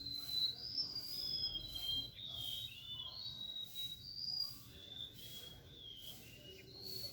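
A songbird singing a continuous, varied string of short whistled notes that slide up and down in pitch.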